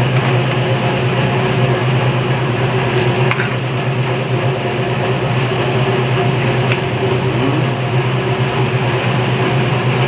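Steady background noise of a commercial kitchen: a constant low hum under an even hiss, with a faint tap of a utensil about three seconds in.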